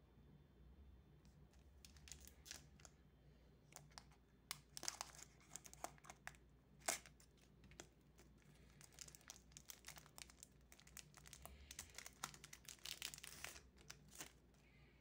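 Foil wrapper of a Magic: The Gathering set booster pack crinkling and crackling as it is handled and torn open: a run of sharp crackles and small rips, loudest about seven seconds in.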